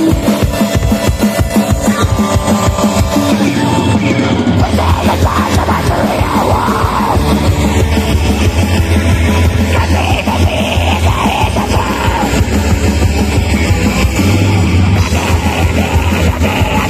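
Live metal band playing at full volume: a drum kit pounding out a fast, steady beat under distorted guitars, with harsh shouted vocals through the middle.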